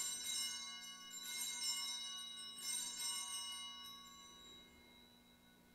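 Altar bells rung three times at the elevation of the chalice after the consecration, each ring of high bright tones fading slowly over a few seconds.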